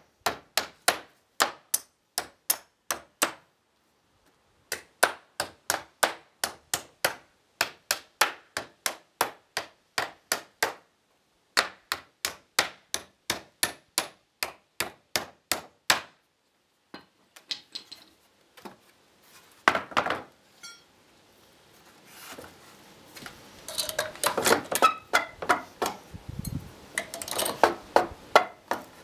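Claw hammer striking nails in pine pallet boards in fast, even blows, about three a second, in three runs with short pauses between them; it is driving the long nails back out through the boards. From about 17 s the hammering stops, giving way to a loud knock and then clattering and knocking of loose wooden boards being turned over.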